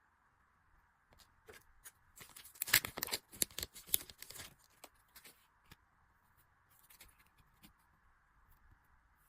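Hands handling and opening merchandise packaging: a burst of crinkling, tearing and clicking rustles about two seconds in that dies down to a few scattered light clicks.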